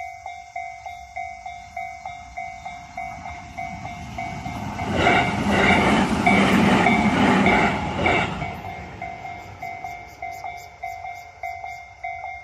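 Japanese level-crossing alarm ringing its rapid electronic ding-ding, about three strikes a second. An electric train passes through about five seconds in, its wheels clattering over the rail joints for about three seconds. The bells stop suddenly at the end as the crossing clears.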